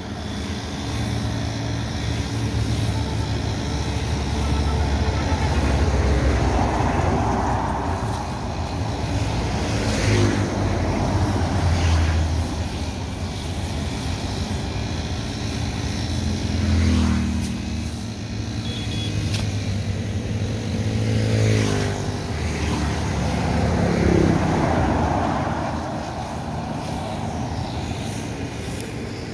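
A brush cutter's small petrol engine running, its pitch rising and falling several times as the throttle changes while cutting grass, under heavy wind rumble on the microphone.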